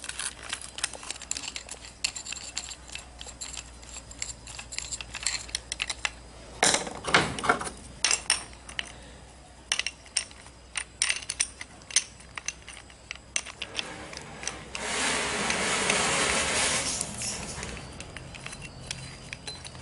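Metal tools and parts being handled: a long run of irregular clinks, clicks and taps. Near the end a rushing noise lasts about three seconds.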